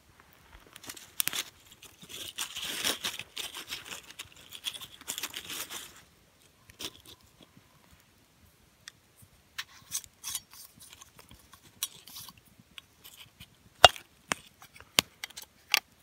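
Cheesecloth bundle of crackers being unwrapped, a dry rustling and crinkling of cloth and crackers for a few seconds. Then comes a scatter of small clicks and taps as the crackers and a glass jar are handled, with a few sharper clicks near the end.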